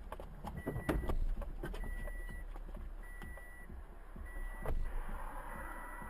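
Steady vehicle rumble under an electronic warning beep repeating evenly, about once every 1.2 seconds, with a few sharp knocks about a second in and again near the end.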